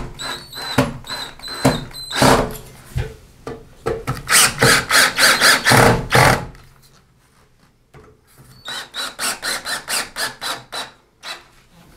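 Cordless drill-driver tightening the screws of a stainless steel grab bar's flange into wall anchors, with a few short runs of the motor and then two stretches of rapid pulsing, about four or five a second, with a pause between them.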